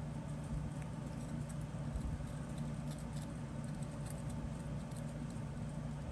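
Light scratching and ticking of a small metal pick scraping casting sand off a freshly cast silver bullet, over a steady low hum.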